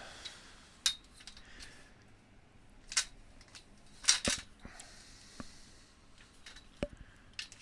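A handful of sharp clicks and knocks at irregular intervals, the loudest about four seconds in, from hands working on the parts of a broken canopy tent's frame as it is taken apart.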